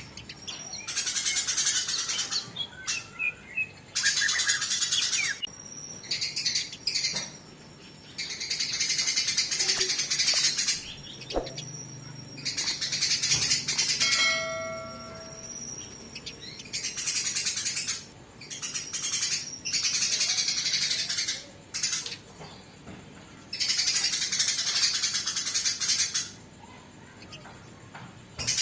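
Eurasian tree sparrows fighting: harsh, rapid chattering in bursts of a couple of seconds, repeating with short pauses. One brief clear whistled note comes about halfway through.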